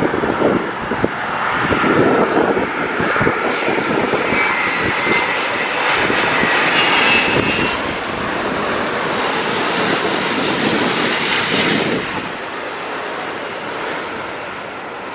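Airbus A350-900's Rolls-Royce Trent XWB jet engines as the airliner passes low overhead on landing approach: a steady rush of jet noise with a thin high fan whine, holding loud as it passes and falling away near the end as it heads off toward the runway.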